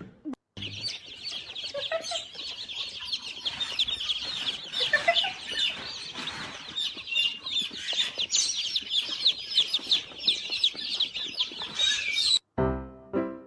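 Chickens clucking and peeping, many high, short calls overlapping in a dense chorus that cuts off suddenly about a second before the end. Piano music starts as they stop.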